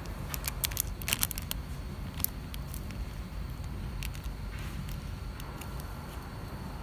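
Thin plastic bun wrapper crinkling and crackling as the packet is handled and turned over, a quick run of sharp crackles in the first second and a half and a few more after, over a steady low hum.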